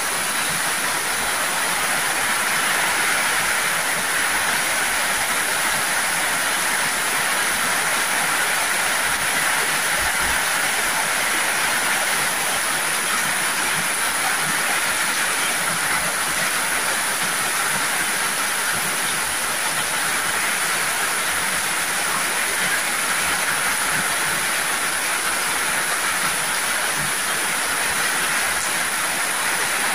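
Heavy tropical rain pouring onto corrugated metal roofing and the ground, a dense, steady hiss with no let-up.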